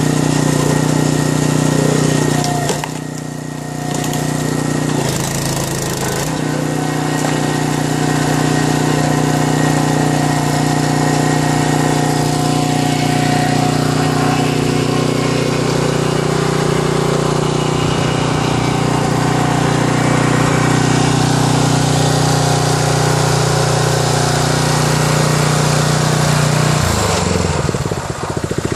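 The Ryetec Eco 80 log splitter's 6.5 hp petrol engine running steadily. Its sound drops briefly a few seconds in, and its note falls away near the end.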